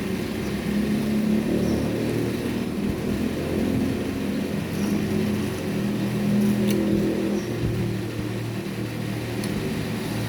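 A motor engine running, its pitch and level rising and falling, with a few faint clicks.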